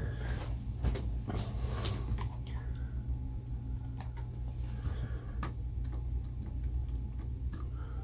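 Computer keyboard keys clicking irregularly as a password is typed in, over a steady low hum.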